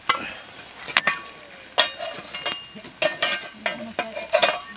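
Metal shovel blade scraping and knocking against hot stones in an earth cooking pit, a string of sharp clinks and scrapes, over a steady hiss from the pit.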